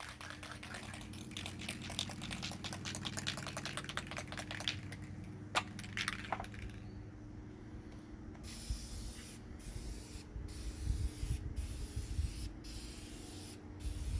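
Aerosol rattle can of yellow gloss enamel spray paint. First a fast, dense clicking for about six seconds, then the paint spraying as a hiss in repeated bursts with short breaks between them.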